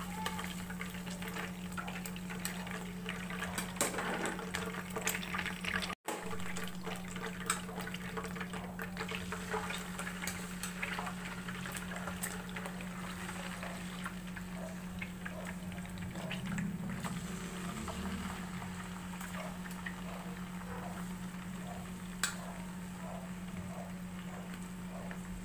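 Chicken pieces frying in shallow oil in a nonstick pan: a steady sizzle with scattered pops and crackles, over a constant low hum. A few sharp clicks stand out.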